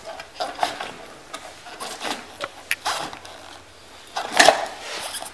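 Bundle of wiring being pushed by hand through an opening in a car's sheet-metal body: irregular rustling, scraping and clicking, loudest about four and a half seconds in.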